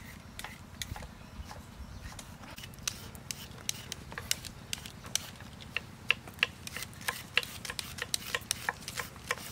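Irregular sharp clicks and light taps of vegetables being prepared by hand, growing busier from about four seconds in, over a low steady rumble.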